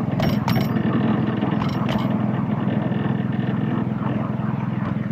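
Miniature petrol-hydraulic locomotive's petrol engine running steadily under way, with a few sharp clicks near the start and again about two seconds in.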